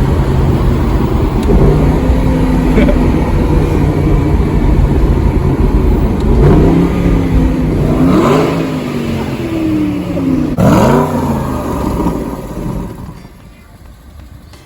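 Aston Martin V8 Vantage's naturally aspirated V8 running under way, steady at first. Around the middle it gives several quick rises and falls in revs, with sharp blips typical of gearshifts through its single-clutch paddle-shift gearbox, then drops away to a much lower level near the end.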